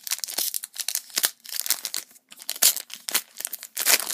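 A foil trading-card booster pack being torn open by hand: a run of irregular crinkles and sharp rips, the loudest about two-thirds of the way through and near the end.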